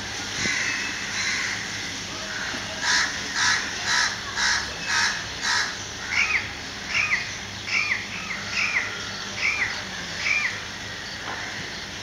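Bird calls: a run of about six harsh calls about half a second apart, followed by about six shorter, higher, arched notes a little under a second apart.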